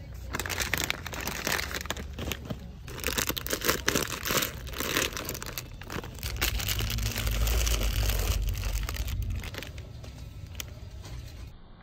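Plastic snack bags and cocoa drink-mix packets crinkling in bursts as they are picked up and handled, with a low rumble about seven to nine seconds in.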